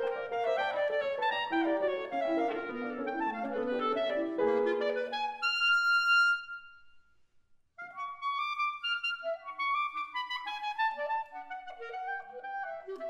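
Clarinet and piano playing a classical chamber piece together. About five seconds in, a long high note fades to a short pause, and then the clarinet carries on largely alone in quick runs.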